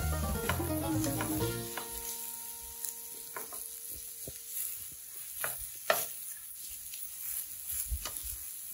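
Zucchini slices sizzling on a hot electric plancha griddle, with a fork and a wooden spatula scraping and clicking on the plate as the slices are turned. Background music fades out in the first couple of seconds.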